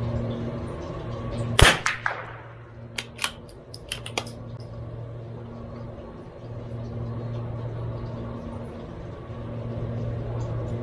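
A single .22LR shot from a CZ 457 MTR bolt-action rifle about a second and a half in, with a brief echo after it. A few sharp metallic clicks follow over the next few seconds as the bolt is cycled to eject the case and chamber the next round. A steady low hum runs underneath.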